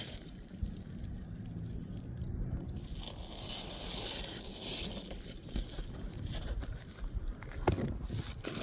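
Gritty scraping and rustling of asphalt shingles being handled on a roof, with a few sharp clicks near the end.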